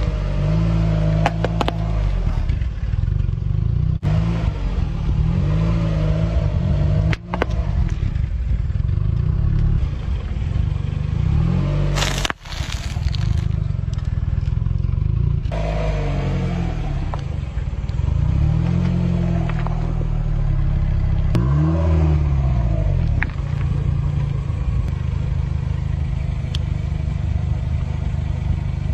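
A car creeping forward with its engine running in a low, wavering rumble while its tyre rolls over and squashes small objects: a mesh-covered squishy ball, a wrapped snack and a spiky rubber ball. Crackling and rustling with a few sharp cracks, in several separate clips.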